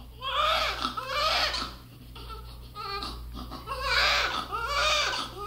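Newborn baby crying in two long bouts with a pause in the middle.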